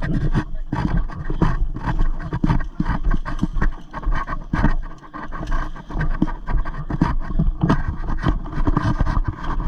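Irregular scraping and knocking, several knocks a second, over a low rumbling haze.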